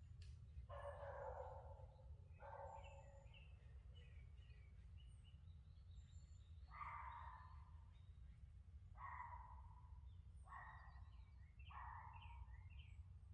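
Faint outdoor ambience: a distant animal calls six times, each call short and harsh. Small birds chirp faintly throughout, over a steady low rumble.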